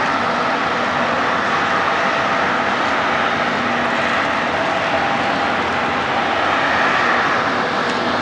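Steady rushing noise with a faint underlying hum, the constant ambient roar on a cruise ship's open aft deck.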